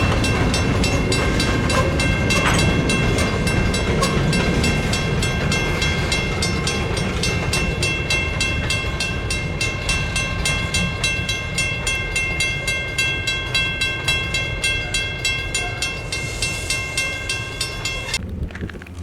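Diesel-hauled freight train rolling slowly past: a low engine rumble with steady high-pitched ringing tones over it, and wheels clicking over rail joints in a quick, regular rhythm. The sound cuts off abruptly near the end.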